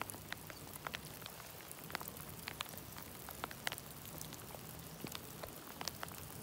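Light rain: scattered raindrops ticking at irregular intervals, a few per second, over a faint low hum.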